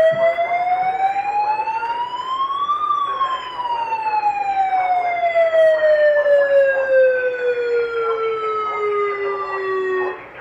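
A siren sounding one slow wail. Its pitch rises for about three seconds, then falls slowly until it cuts off abruptly near the end.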